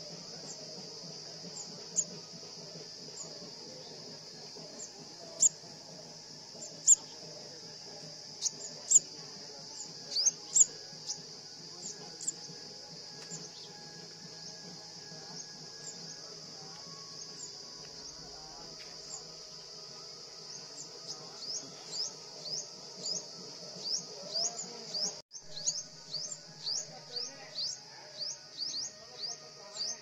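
Sharp, high-pitched rising chirps from a small animal, scattered at first, then about two-thirds of the way in a fast regular series of about two chirps a second. Behind them runs a steady high-pitched insect drone.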